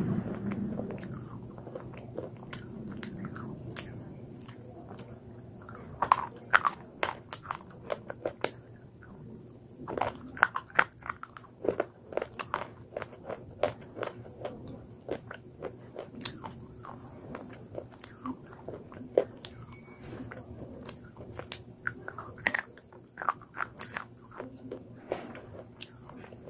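Slate pencils being bitten and chewed close to the microphone: a run of sharp, brittle crunches and snaps. They are sparse for the first few seconds, then come several a second from about six seconds in.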